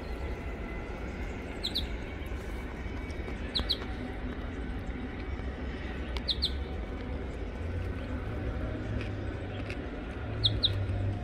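A bird repeating a short, high double chirp about every two seconds, over a steady low rumble.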